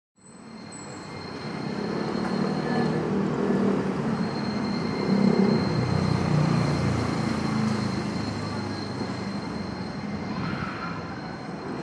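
Toei 8900 series tram passing close and rounding a tight curve of street track. There is a steady rolling rumble, loudest in the middle, with a thin high squeal of the wheels on the curve.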